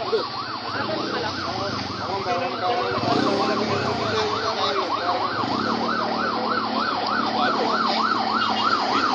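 Emergency-vehicle siren in a fast yelp, its pitch rising and falling about four times a second, growing louder over the last few seconds.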